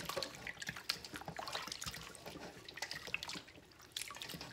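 Water splashing and sloshing in a stainless steel bowl as hands rub raw chicken wings in a rinse, with small irregular splashes and drips.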